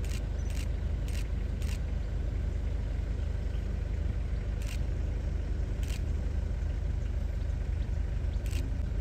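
Car driving, a steady low engine and road rumble, with a few sharp clicks or rattles at irregular moments.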